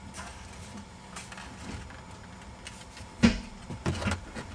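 Plastic trim cover around a car's manual shifter being pried up and pulled off, with a sharp snap about three seconds in and a few lighter clicks just after.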